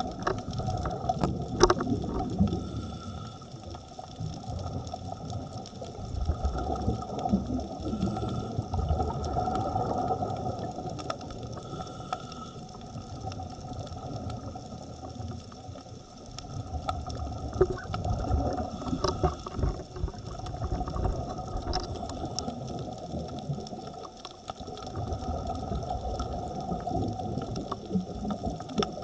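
Underwater ambience picked up by a diver's camera: a steady engine-like drone with surges of low rushing water noise that rise and fall every few seconds.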